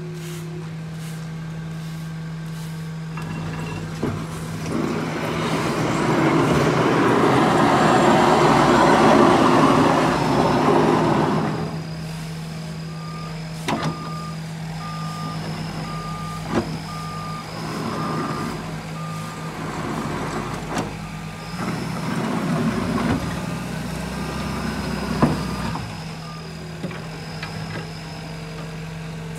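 Heavy diesel work-truck engine running steadily. From about four seconds in, a loud rush of noise lasts some seven seconds. After that a backup alarm beeps steadily for about thirteen seconds, with a few sharp knocks.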